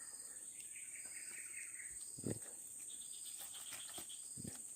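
Steady high-pitched insect chirring, with a short trilling call about half a second in and two soft knocks later on.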